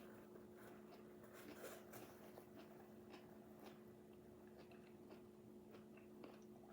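Near silence: faint, scattered chewing clicks over a low steady hum.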